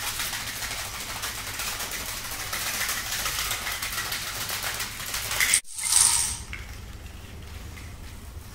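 A long chain of dominoes toppling on a hard tile floor: a rapid, continuous clatter of many small clicks that cuts off suddenly about five and a half seconds in, followed by a short, louder burst of clatter and then quieter scattered clicks.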